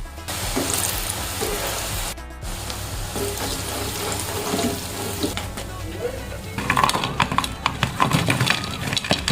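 Batter sizzling in hot oil, with background music, and a run of sharp crackles beginning about two-thirds of the way through.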